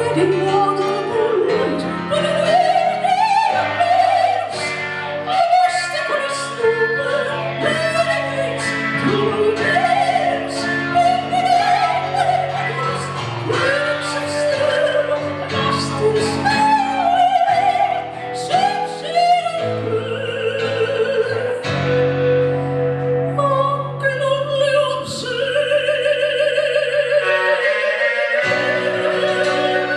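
A woman singing in an operatic style with wide vibrato, accompanied by piano and guitar; in the second half she holds long notes.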